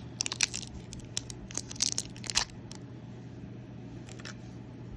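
Small cardboard box and wrapper being opened by hand: a quick run of crinkling, tearing and clicking in the first two and a half seconds, then only an occasional click, over a steady low hum.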